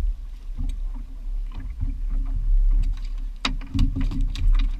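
Small open boat on the sea: a steady low rumble of water against the hull and wind on the microphone, with a run of sharp knocks and taps on the deck starting about three and a half seconds in.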